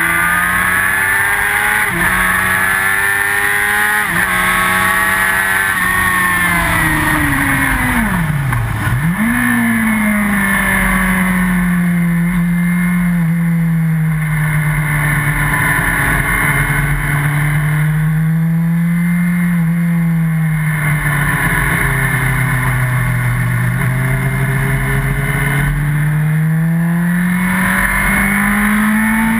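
Yamaha R1 sportbike's inline-four engine heard from the bike's onboard camera at full throttle. The pitch climbs and drops sharply with upshifts about every two seconds. About eight seconds in, the pitch falls steeply as the bike slows, then jumps back up. After that the engine note rises and falls slowly through the corners, with steady wind rush over it.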